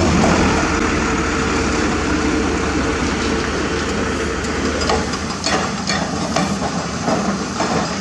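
Dump truck's diesel engine running steadily. After about five seconds the engine sound drops and irregular knocks and clatters of rock follow.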